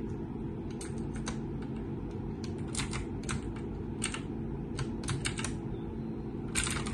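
Typing on a GK4000F backlit mechanical keyboard: irregular key clicks, with a quick run of keystrokes near the end, over a steady low background hum.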